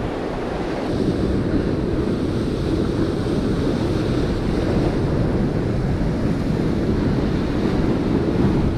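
Ocean surf washing in against a rocky shore, a steady rushing noise, with wind rumbling on the microphone.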